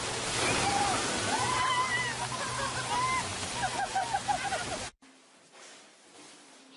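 Water pouring down steadily from a pool fountain, with people shrieking and yelling under it. The sound cuts off suddenly about five seconds in, leaving a much quieter room.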